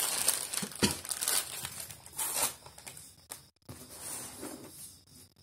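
Packaging being handled, crinkling and rustling in a quick run of bursts for about two and a half seconds, then fainter rustles near the end.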